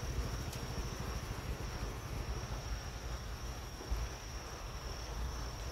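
Crickets trilling steadily as one unbroken high tone, over a low rumble of wind and handling noise on the phone's microphone.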